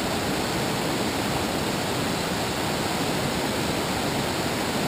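River rapids and white water rushing steadily, an even, unbroken wash of moving water.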